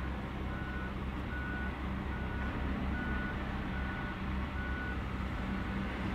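Backup alarm beeping about once every 0.8 seconds and stopping about five seconds in, over the steady running of a heavy diesel engine heard from inside a truck cab.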